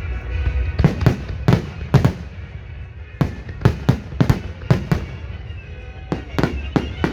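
Fireworks display: shells bursting with sharp bangs, often several within a second, in clusters over a continuous low rumble.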